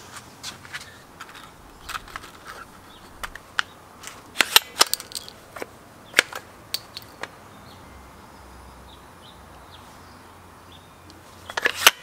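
Sharp plastic and metal clicks and clacks from a Ramset hammer-fired nail tool being handled and readied, its barrel worked by hand. The clicks come singly and in small clusters, loudest in the middle, with a quiet stretch and then a quick bunch of clicks near the end.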